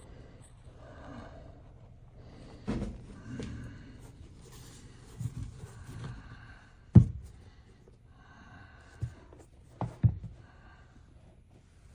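A few short, dull knocks, as of objects being set down or handled; the loudest comes about seven seconds in, with three more close together near the end.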